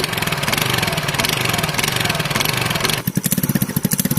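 A TVS scooter's single-cylinder engine running through its repaired exhaust, with a welded and replaced bend pipe, now giving the stock factory sound. It runs with a dense, noisy sound for about three seconds, then drops suddenly to an even, pulsing idle.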